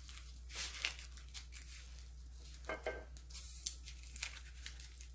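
Faint, scattered crinkling and rustling of dry laver (gim) sheets handled with latex-gloved hands as small rice rolls are wrapped.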